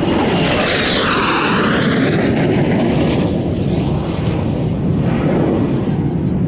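Blue Impulse Kawasaki T-4 jet trainer passing close overhead at high power after takeoff. Its turbofan whine sweeps down in pitch as it goes by about a second in, then settles into a loud steady rumble as it climbs away.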